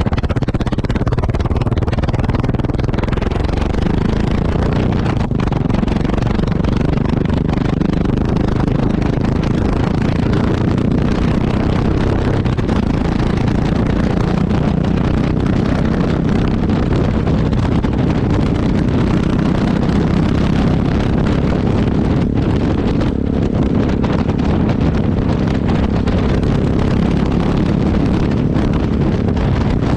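Yamaha XT660X's single-cylinder four-stroke engine heard close to the exhaust, running steadily, with wind rushing over the microphone.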